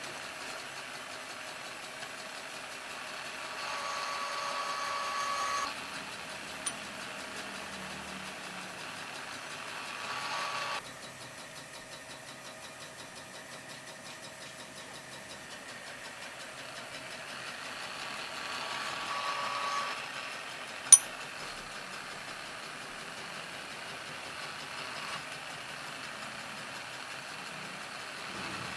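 Steady mechanical running noise with a whining tone that swells a few times, and a single sharp click about 21 seconds in.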